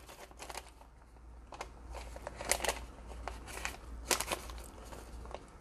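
Paper and plastic packaging being handled close by, rustling faintly, with a scattered handful of light clicks and taps, the sharpest about two and a half and four seconds in.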